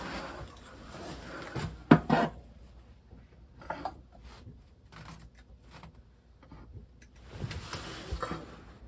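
Wiring being shoved back into a box by hand: scraping and rubbing with scattered knocks, the sharpest about two seconds in, and a cluster of handling noise near the end.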